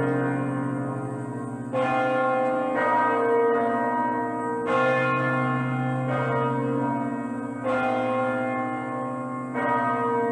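Church bells ringing, a fresh strike about every two to three seconds over the long overlapping hum of the earlier strokes.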